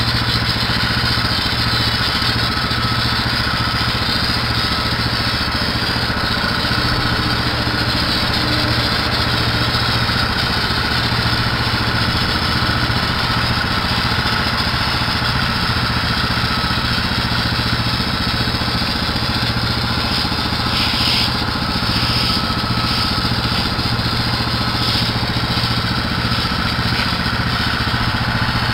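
Gas-engine pressure washer running steadily, with the hiss of its spray.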